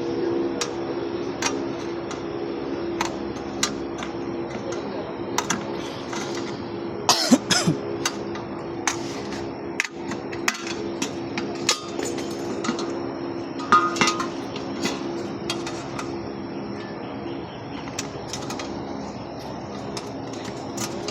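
A steady mechanical hum with scattered sharp knocks and clinks of tools or hard objects. A cluster of louder knocks comes about seven seconds in and another around fourteen seconds.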